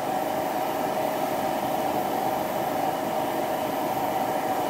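Steady, even hiss with a faint hum inside a car cabin, like air rushing from the ventilation, with no change from start to end.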